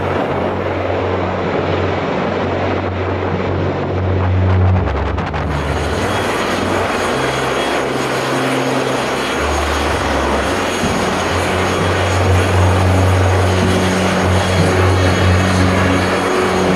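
CH-53E Super Stallion heavy helicopter running: a loud, steady turbine-and-rotor roar with a high whine on top. The sound grows brighter about five seconds in.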